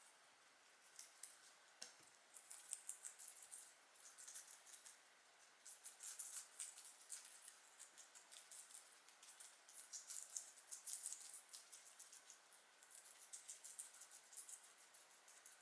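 Guinea pigs chewing: faint, rapid, crisp crunching clicks in runs, broken by short pauses.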